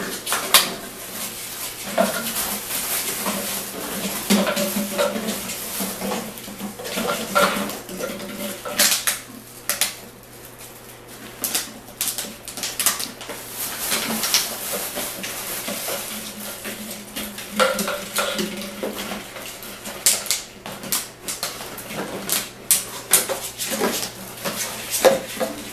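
Empty plastic water bottles clattering as puppies knock, push and mouth them about a cardboard tray, with many sharp, irregular knocks.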